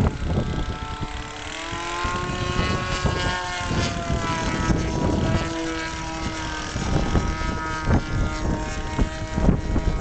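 Model-aircraft glow engine, a Super Tigre 25cc, running in flight overhead, its pitch rising and falling as the plane passes and manoeuvres. Strong wind buffets the microphone underneath it.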